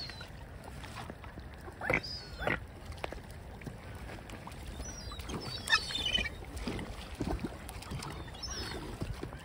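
Water birds calling at the feeding spot: a few short, high-pitched calls, then a quick run of squawks a little past the middle, over a steady low rumble of wind or water.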